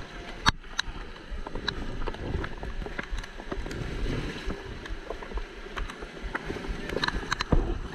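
An inflatable raft on a river, with water rushing and sloshing and scattered sharp knocks and clicks.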